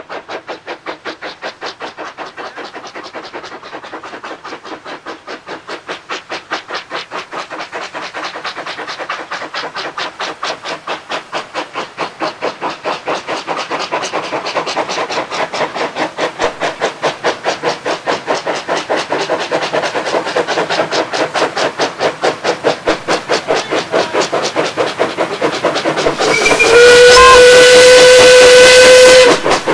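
Small industrial steam tank locomotive passing while hauling a freight train, its chuffing exhaust beating in a quick, even rhythm that grows louder as it approaches. Near the end it sounds one long steam-whistle blast of about three seconds, the loudest sound here.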